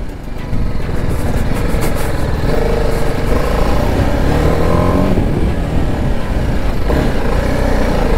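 BMW motorcycle engine running at low speed and revving up and down as the bike is ridden over large stones on a rough off-road track.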